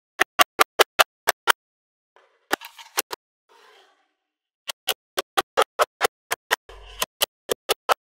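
Magnetic balls snapping together one after another, sharp clicks about five a second. About two seconds in the clicking pauses for a couple of soft scraping rustles, then the clicks resume.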